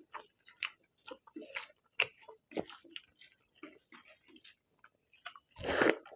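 Close-up eating sounds from a mouthful of egg curry and rice: wet chewing and lip smacks come in short, irregular clicks. A sudden loud burst near the end.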